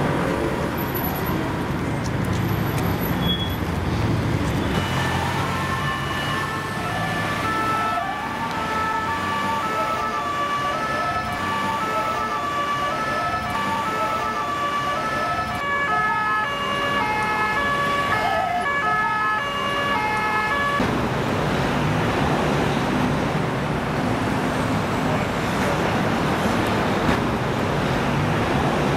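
Emergency vehicle siren going back and forth between two pitches, starting about five seconds in and cutting off abruptly about two-thirds of the way through, over steady road traffic.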